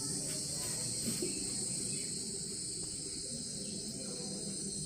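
Steady high-pitched background hiss, with faint scratching of a felt-tip marker writing on a whiteboard.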